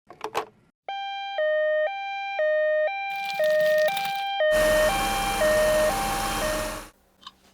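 Electronic hi-lo ambulance siren of a toy ambulance, two notes alternating about every half second. A loud rushing noise joins it about halfway through, and both cut off near the end.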